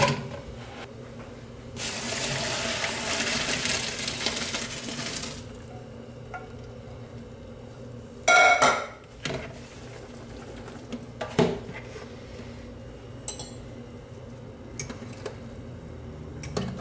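Boiling pasta water poured out of a cooking pot into a plastic colander: a rush of pouring water for about three and a half seconds. A loud clatter of kitchenware follows, then a single knock and a few small clinks.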